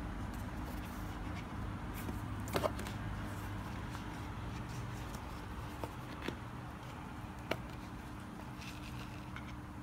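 Handling of a watch presentation box and its paper booklet: a quick pair of clicks about two and a half seconds in, then a few lighter single clicks and taps, over a steady low hum.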